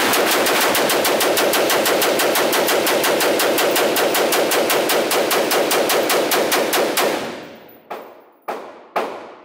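AR-style rifle firing a fast, unbroken string of shots, about seven a second, for about seven seconds, echoing in an indoor range. A few single shots follow near the end.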